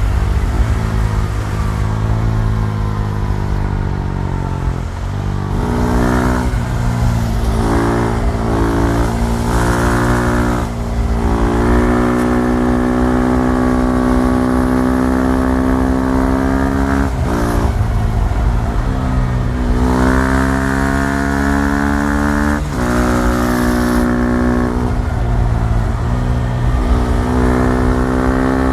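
KTM 390 Duke's single-cylinder engine running under way: engine speed falls over the first few seconds, then holds fairly steady, with the pitch breaking and dropping sharply several times.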